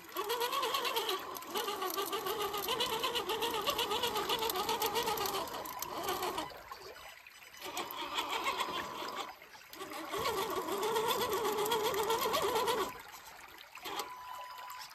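RC 6x6 crawler truck's motor and drivetrain whining as it crawls through a rocky creek, the pitch wavering with the throttle, in several long bursts with short pauses between them. It is quieter near the end.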